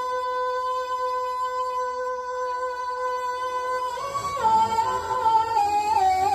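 A man singing a naat through a microphone and loudspeakers, holding one long steady note for about four seconds, then moving through a run of short stepped notes.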